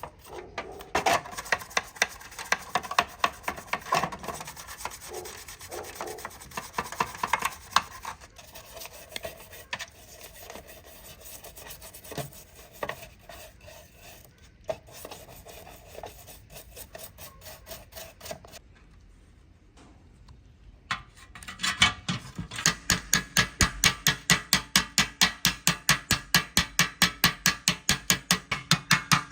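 Hand abrading work: a file or sandpaper rasping back and forth over a surface in quick, repeated strokes. After a short pause it resumes louder and very regular, at about four strokes a second.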